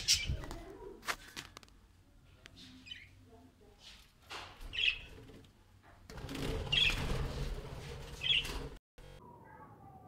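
Pet budgerigar giving short chirps every second or two, among bursts of rustling noise. The sound breaks off briefly near the end.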